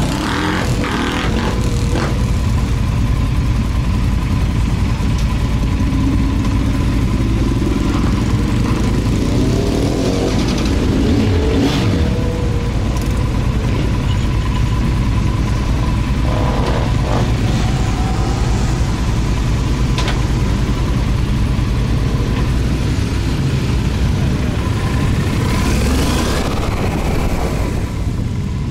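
Yamaha XT1200Z Super Ténéré motorcycle running under way: a steady loud engine and road rumble, with the pitch gliding up and down as it speeds up and slows.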